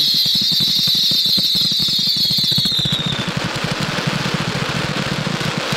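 A 500 gram consumer firework finale cake firing its tubes in fast succession: a dense, rapid run of launch thumps. A high whine fades out about three seconds in, and a wash of crackling from the crackling mines and stars builds over the second half.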